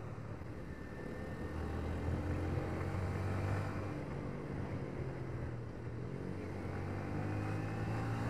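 Yamaha Vixion R 155 VVA's single-cylinder four-stroke engine running steadily under way, its pitch rising near the end as the bike gathers speed.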